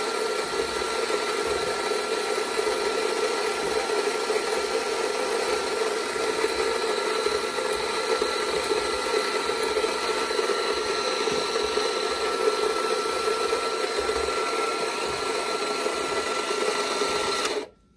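Electric burr coffee grinder running steadily with a constant whine as it grinds freshly roasted beans, switched off about a second before the end so that it cuts out suddenly.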